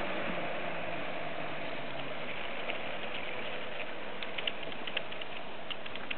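Fiatagri 160-90 DT tractor's diesel engine running in the distance, faint and fading away over the first couple of seconds, leaving a steady outdoor hiss. Several light ticks come in the second half.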